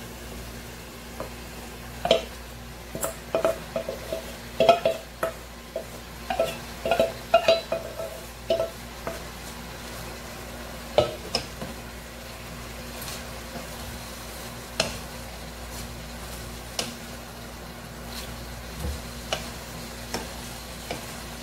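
Wooden spatula knocking and scraping against a metal bowl and pot while shredded cabbage is tipped in and stirred, the metal ringing briefly with each knock, over a steady sizzle. The knocks come thick for the first several seconds, then only now and then.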